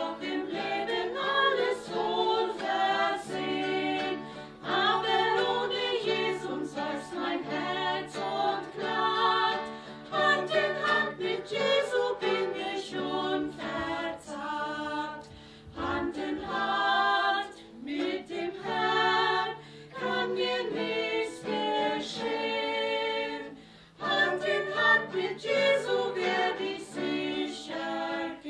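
Four women singing a German gospel hymn together in harmony, accompanied by an acoustic guitar.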